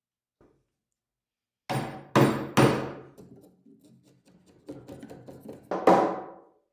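Hammer blows: three quick, sharp strikes about two seconds in, each ringing briefly, then lighter taps and two more strikes near the end.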